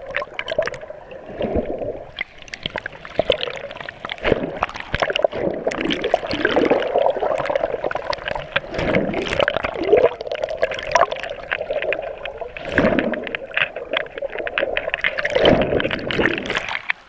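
Underwater sound picked up by a GoPro in its waterproof housing in shallow surf: muffled churning and gurgling of sea water, with many small clicks and knocks. It drops away abruptly at the very end.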